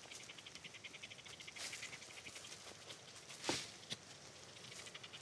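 Insect, cricket-like, chirring steadily in rapid, evenly spaced pulses. Two sharp cracks of twigs snapping underfoot come about three and a half seconds in, the first the loudest, the second a moment later.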